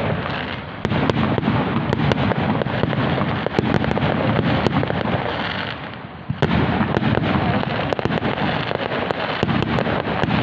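Fireworks display at its height: a dense, continuous barrage of bangs and crackling. It eases briefly about six seconds in, then a sharp bang brings it back to full intensity.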